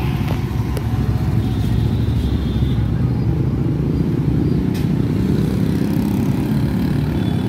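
Street traffic: a steady low rumble of passing vehicles.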